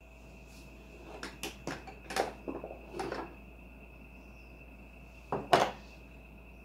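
Clicks and knocks of a violet ray's handpiece, cord and wooden case being handled as the handpiece is lifted out, the loudest knock near the end, over a faint steady high-pitched tone.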